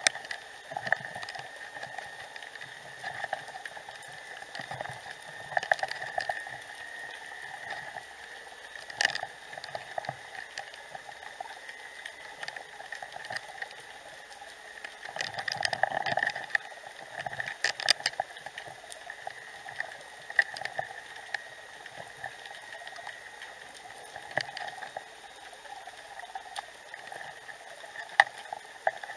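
Underwater ambient sound heard through a submerged camera: a steady crackling hiss with irregular sharp clicks, which come thicker and louder about halfway through.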